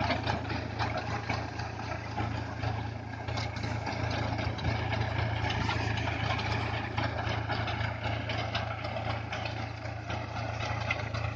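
Tractor engine running steadily with a low hum, over constant irregular rattling and clatter from the working harvesting machinery.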